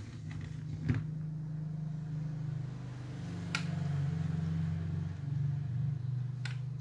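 Plastic Lego Duplo bricks clicking three times as hands press and handle them, over a steady low hum.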